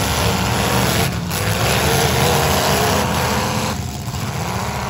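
Demolition derby cars' engines running loudly, with wavering revs in the middle.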